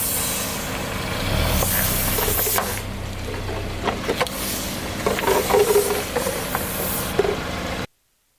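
A car engine running slowly while a tyre rolls over objects and crushes them, with scattered cracks and crunches. The sound cuts off suddenly near the end.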